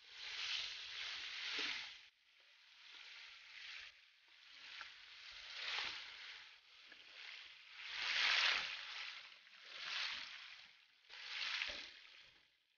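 Chicken wings sizzling in a nonstick frying pan. The sizzle swells and fades in waves as a spatula stirs and turns them.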